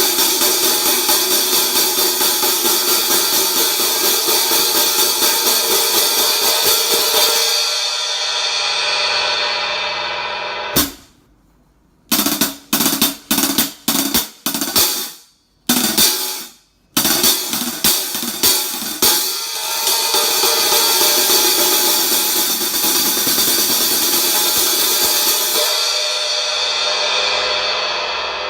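15-inch Zildjian Sound Lab prototype hi-hats being played: a steady run of strokes, about three a second, then a ringing wash that fades. After a short silence come several short, separate hits that cut off abruptly, and then a long ringing wash that slowly dies away.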